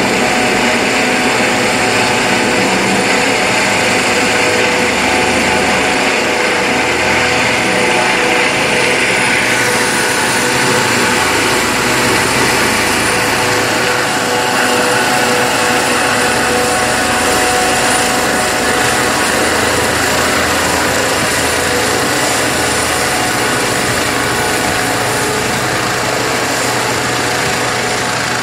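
Helicopter's turbine engine and rotor running steadily and loud, a high turbine whine over a steady drone. A hissing layer in the sound fades out about ten seconds in.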